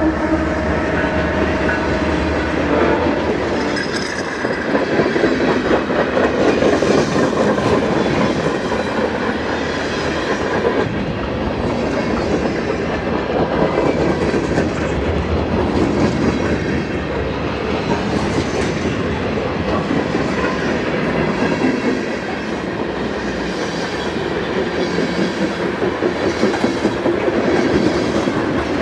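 Freight train cars rolling past, wheels clicking and rattling over the rail joints in a continuous clatter.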